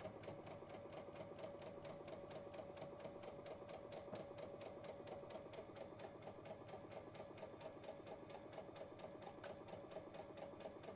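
Baby Lock sewing machine running steadily on a straight stitch, the needle mechanism clattering in a rapid, even rhythm over a steady motor hum. It plays quietly and without a break.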